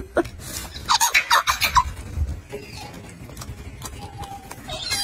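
Golden monkey giving a quick series of short, squeaky calls that fall in pitch, about a second in, then fainter sounds.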